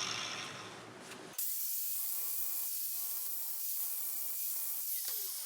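A power tool working the edges of steel angle iron and flat bar to clean them up and bring them to length. It fades over the first second or so, then changes suddenly to a steady motor whine with a faint rasping, its pitch wavering slightly.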